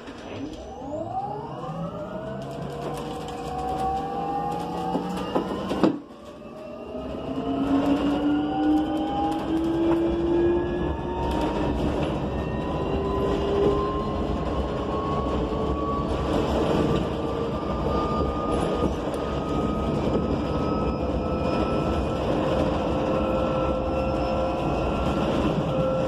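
Electric traction motors of a 2019 BYD K9M battery-electric bus whining as it pulls away and accelerates, over steady road noise. Several tones rise in pitch together, break off with a sharp clunk about six seconds in, then climb again from lower and settle into a steady high whine.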